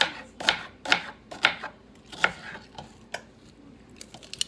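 Kitchen knife chopping an onion on a plastic cutting board: sharp chops about two a second at first, slowing to single chops, with light clicks near the end.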